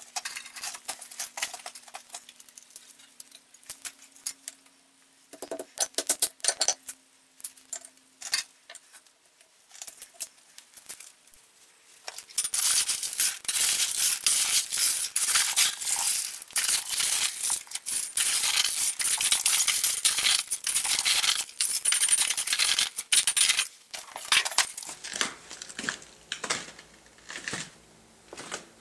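Metal objects clinking and rattling: scattered clinks at first, then a dense, loud clatter of rapid rattling for about twelve seconds, thinning out near the end.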